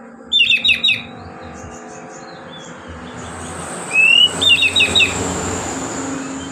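Oriental magpie-robin singing its relaxed, open-voiced song (what keepers call ngeplong): a quick run of about four sharp, clipped notes, then near the middle a short rising whistle followed by another run of about four notes.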